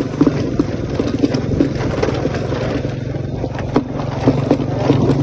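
Motorbike engine running steadily while riding, with scattered knocks and rattles.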